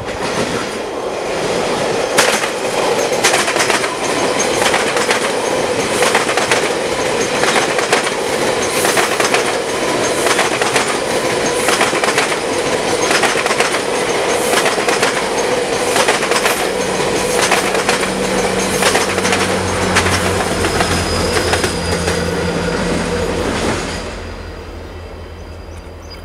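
GO Transit bilevel commuter train passing close by: a steady rush of wheels on rail with regular clicks over rail joints and a sustained ringing tone. Near the end the diesel locomotive pushing at the rear goes by with a low engine drone. The sound drops sharply about 24 seconds in, leaving a low hum.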